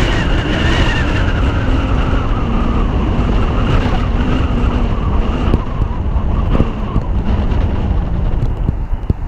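Car driving, heard from a camera on its roof: wind rumble on the microphone over road noise. A faint whine in the noise falls slowly in pitch over the first several seconds, and a few sharp knocks come near the end.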